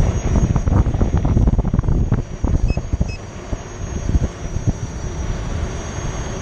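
Wind buffeting the microphone of a camera moving with an electric unicycle ride, in irregular low rumbling gusts. Two short high beeps sound close together about three seconds in.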